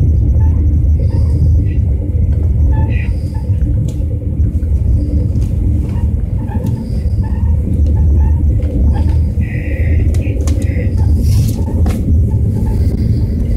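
Passenger train running along the track, heard from inside the carriage: a steady low rumble with a few scattered clicks.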